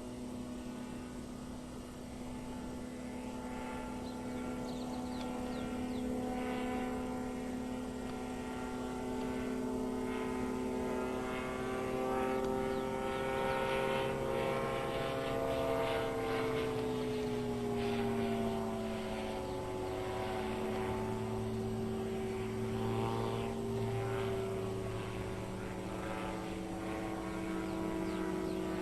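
Titan Tornado light aircraft's engine and propeller droning in flight, growing louder over the first few seconds. The pitch rises around the middle, then slides down and levels off, as the plane manoeuvres and passes.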